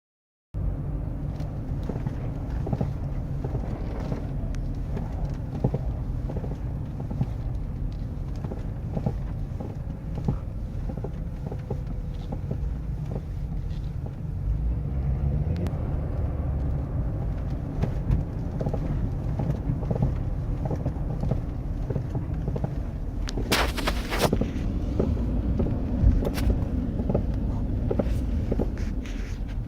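Front end of a 2012 Ford F350 pickup clunking and crunching while driving in sub-freezing cold, over a steady low road rumble: many short knocks, with one loud, longer crunch about 24 seconds in and a sharp knock shortly after. The owner feels it in the steering, and a dealer found no fault.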